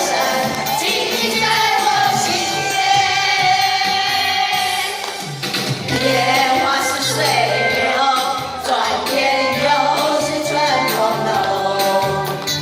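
A choir singing a Chinese song over an instrumental accompaniment with a steady bass line.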